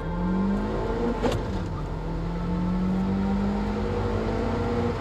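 Car engine accelerating through the gears: its note climbs, drops at a gear change about a second in, then rises slowly again under load.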